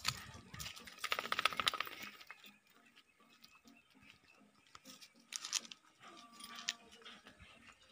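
Faint crunching and scuffing footsteps on dirt and gravel, with a brief rapid rattle about a second in.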